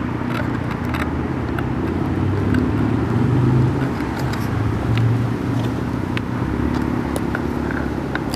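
Steady low rumble of road traffic with a hum, swelling briefly a little past three seconds in and again at about five seconds.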